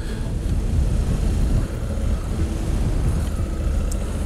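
Honda Africa Twin's parallel-twin engine running steadily at low revs as the motorcycle is ridden gently off-road, under a low rumble of wind.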